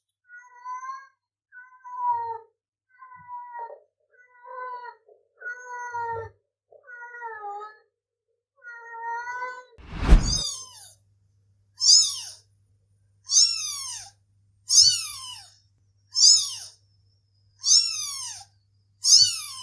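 Cats meowing: first a string of about nine short, softer meows, then, after a sharp click about ten seconds in, a second cat with eight louder, high-pitched meows, each falling in pitch, about one every second and a half.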